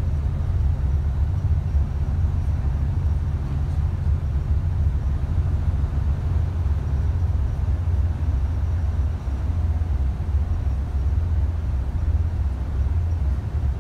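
Inside the cabin of a moving tour bus: a steady low rumble of engine and road noise.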